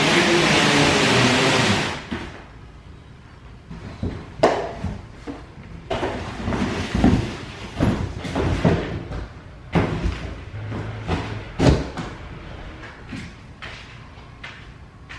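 A large cardboard bike box sliding and scraping across the floor, then a run of knocks, thumps and cardboard rustling as the box is handled and opened and a bicycle is lifted out of it.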